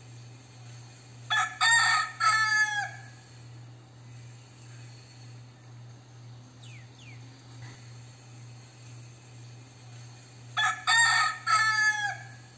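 A crossbred gamecock crowing twice, about nine seconds apart; each crow lasts about a second and a half, in three parts, the last drawn out and falling in pitch at the end.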